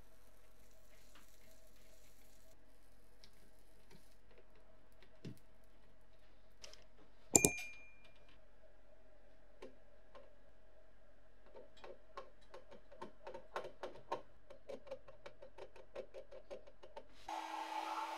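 Bench work on a circuit board over a faint steady hum: scattered small clicks, one sharp clack about seven seconds in, and a run of quick small ticks. Near the end a hot air rework gun switches on suddenly and blows with a steady whirring hiss.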